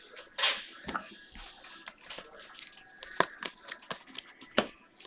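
Baseball cards being handled by hand: scattered sharp flicks and rustles of card and packaging, with one longer rustle about half a second in.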